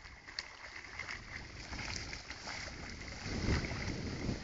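Faint water sounds with wind buffeting the microphone, strongest about three and a half seconds in.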